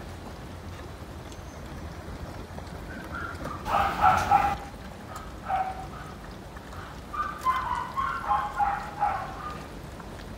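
Young puppies whining and yelping with short high cries, loudest about four seconds in and again in a quick run of cries from about seven to nine seconds, over a steady low hum.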